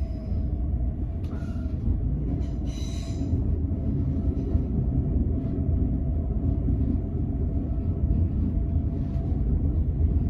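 A passenger train running, with a steady low rumble. About three seconds in there is a brief high-pitched squeal, typical of wheels on the rails.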